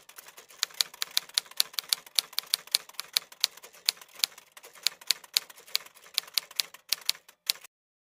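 Typewriter keystroke sound effect, a fast run of sharp clicks about five a second that goes with text typing out letter by letter, stopping abruptly near the end.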